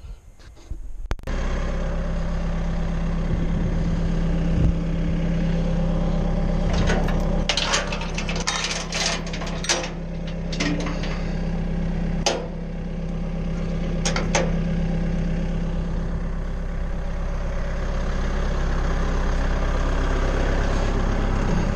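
Tractor engine running steadily at idle, with several sharp metal clanks over it.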